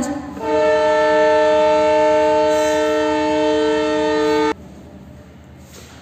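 A single long horn blast lasting about four seconds, steady in pitch with several tones sounding together, that cuts off suddenly.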